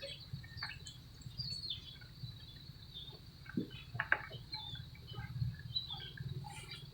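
Faint outdoor background: scattered short chirps and clicks over a low, steady rumble.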